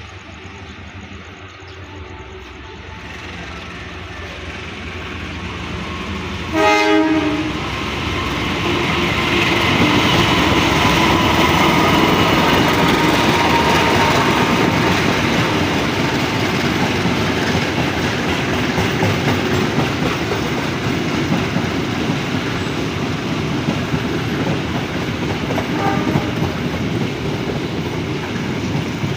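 A train approaching and sounding one short horn blast about seven seconds in, then passing close by with a loud, steady rumble of wheels on the rails.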